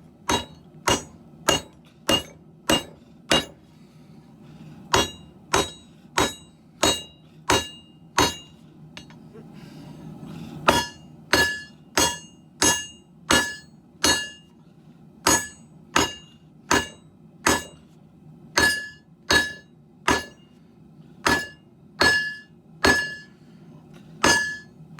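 Hand hammer blows on a steel sword billet over an anvil, each strike ringing, about one and a half to two blows a second. The hammering comes in three runs with two short pauses, the longest run in the second half.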